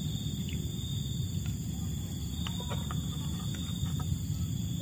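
Steady outdoor insect chorus, a continuous high-pitched drone over a low steady rumble, with a few faint clicks about halfway through.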